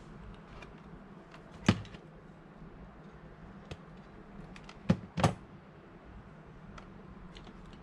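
A few sharp clicks and knocks from hand tools and wires being handled in a plastic pump enclosure: one loud knock a little under 2 seconds in, and two close together about 5 seconds in, with lighter ticks between.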